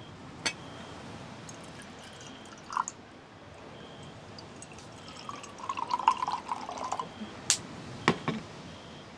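Liquid pouring and dripping, with a few sharp clicks and taps.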